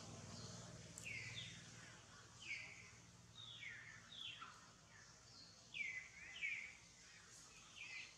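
Short, high chirping calls, each falling in pitch, repeated about once or twice a second over faint outdoor background.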